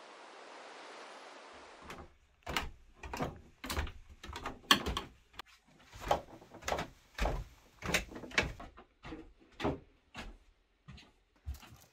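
A steady outdoor hiss, then bare feet thudding down steep wooden stair treads and across wooden floorboards: a string of separate knocks, one or two a second, starting about two seconds in.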